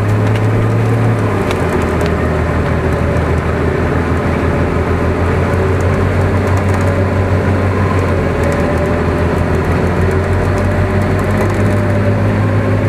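Off-road 4x4's engine running steadily at low, even revs, with a faint wavering whine above the hum.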